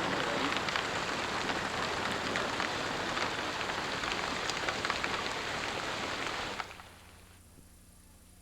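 Heavy rain falling, a dense steady hiss with many sharp drop patters, heard from inside a car with a window partly open. It cuts off suddenly near the end, leaving only a faint hum.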